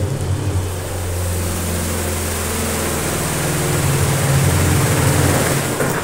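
Spin dryer of a Voltas Beko 8.5 kg semi-automatic twin-tub washing machine spinning with a steady motor hum, with a rushing hiss of tap water running into the spin tub during a rinse. The sound drops off at the very end as the lid is opened, which stops the spinner.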